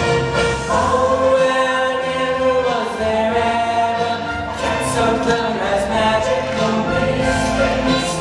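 Music: a choir singing long held notes, the chord changing every few seconds.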